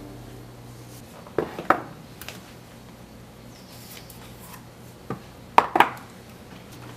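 High-heeled sandals knocking and clacking on a hard floor as bare feet step out of them: a couple of knocks about a second and a half in, then three sharper clacks around five to six seconds in, over a low steady hum.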